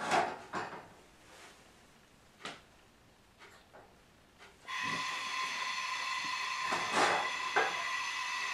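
Knocks of a cooking pot being handled on the stovetop, then a steady hiss with a high whine switches on suddenly about five seconds in as the stove is turned on to boil the rice, with two more knocks over it.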